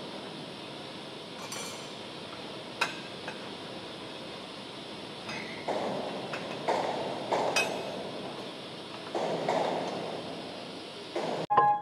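Steel slitter knives and spacer rings handled on a slitting machine's arbor: a few sharp metal clinks and knocks over steady workshop noise. Piano music starts just before the end.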